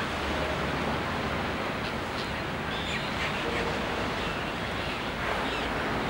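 Steady wash of surf on a beach, with a few faint, short calls from a flock of terns and gulls a couple of seconds in.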